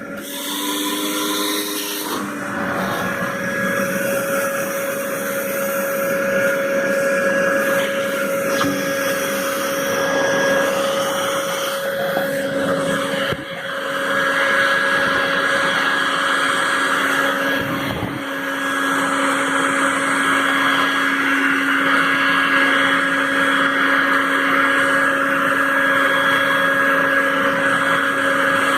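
Ultracomb Pionero 20-litre vacuum cleaner and blower running steadily, its motor giving a steady whine, with a short dip in level about halfway through and another a few seconds later.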